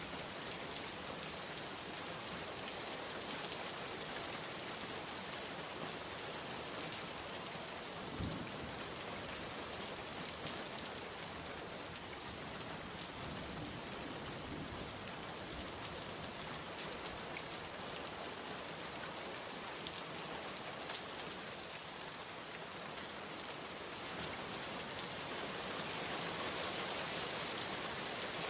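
Steady rain falling and pattering on a surface, a dense even hiss with scattered individual drop taps, one a little louder about eight seconds in; it swells slightly near the end.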